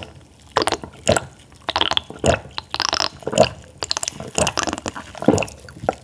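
A person drinking water from a glass mug in a long run of gulps, about two a second.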